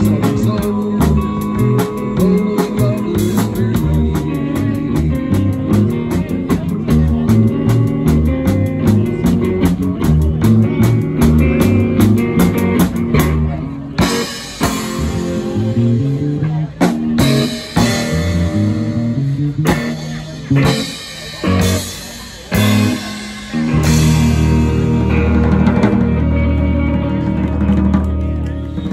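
Live rock band of electric guitar, electric bass and drum kit playing at full volume. About halfway through the steady beat gives way to a run of short stop-start hits with gaps between them. It ends on a long held final chord with a deep bass note, which cuts off near the end.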